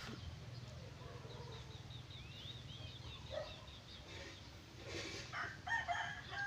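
Birds calling: a quick run of high chirps, then louder pitched calls near the end, over a steady low hum.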